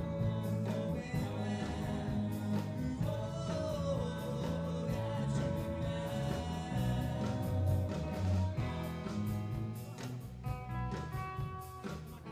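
Live band playing with guitar and singing: a rock song with a steady beat, the voice dropping out in the second half while the instruments carry on.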